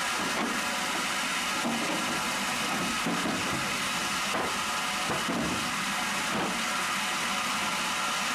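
Machinery running steadily: an even mechanical hum and hiss, with a few faint knocks along the way.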